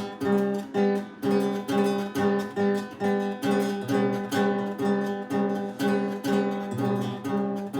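Acoustic guitar strummed in a steady rhythm, about two strums a second, repeating the same chords with no singing.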